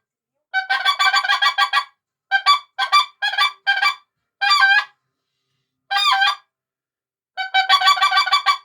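Goose call blown by mouth, sounding a series of honks and fast chattering clucks with pitch-breaking notes that imitate wild geese. The bursts are separated by short silences. A fast chatter comes about a second in, separate honks follow, two longer breaking notes come near the middle, and another fast chatter comes near the end.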